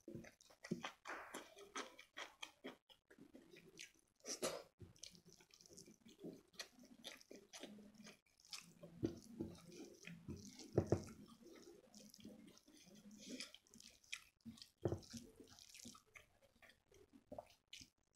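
Close-up mouth sounds of chewing and lip smacking, mixed with the wet squish of rice and palak paneer mashed together by hand on a plate. The sound is a faint, irregular run of short smacks and clicks, with a louder cluster near the middle.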